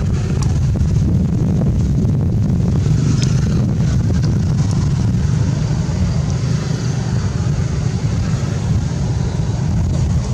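Steady low rumble of wind buffeting the microphone, with a few faint high ticks about three seconds in.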